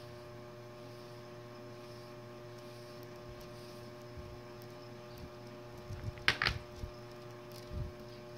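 A steady hum of several fixed tones, with two short scratchy bursts about six seconds in and a dull knock near the end.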